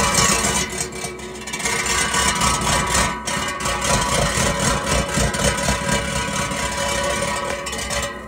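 Skid steer at high revs driving the Coneteks 2.13M attachment's toothed rotor into stony ground: a loud, dense rattle of rapid hits over a steady machine whine. It cuts off suddenly near the end.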